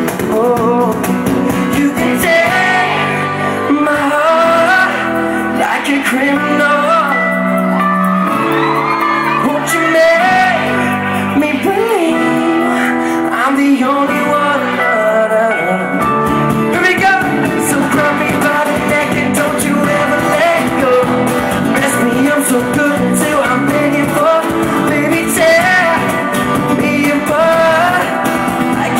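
Live acoustic pop band: a male voice singing over strummed acoustic guitars and keyboard.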